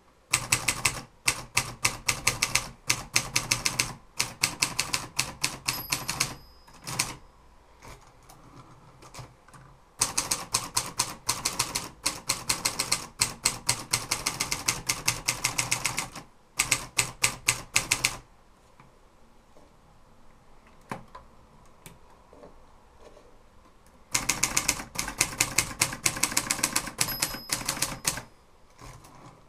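Adler Tippa manual typewriter being typed on: fast runs of sharp key strikes several seconds long, broken by pauses. A brief high ring comes twice.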